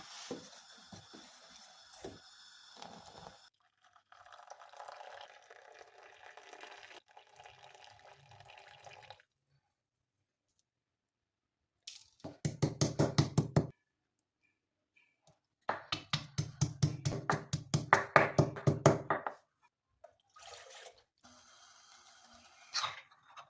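Kitchen sounds: a soft, hissing run of water or liquid for the first several seconds, then two runs of rapid knocking strikes, about seven a second. The first run lasts under two seconds, the second about four, and these strikes are the loudest sounds.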